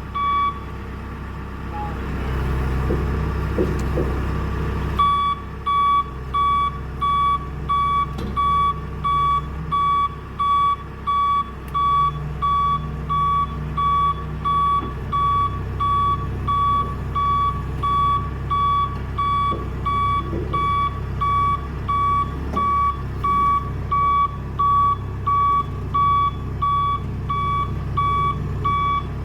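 Telehandler reversing alarm beeping in an even repeating rhythm over its diesel engine running. The beeping drops out for a few seconds near the start while the engine grows louder, then resumes and continues.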